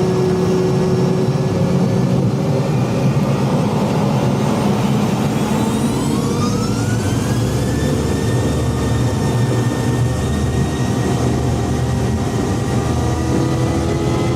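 McDonnell Douglas MD-88 jet engines running loud at takeoff power, with a whine that rises in pitch about five seconds in and then holds steady as the engines spool up to full power.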